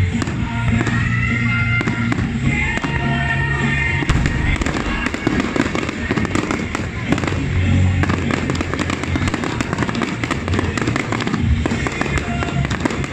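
Fireworks going off in quick succession, many sharp bangs and crackles, with music playing over them.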